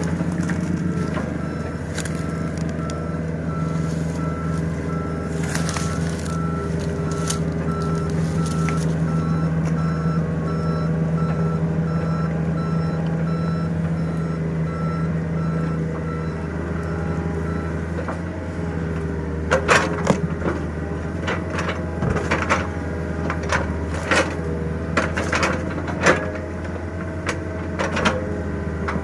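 Mini excavator's diesel engine running steadily, with a backup alarm beeping evenly through the first half or so. After the beeping stops, a run of sharp knocks and cracks as the machine digs at the tree roots.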